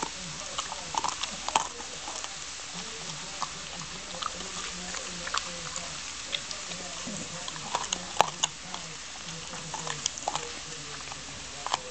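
A dog chewing a raw broccoli stem: irregular wet crunches and clicks of teeth on the stalk.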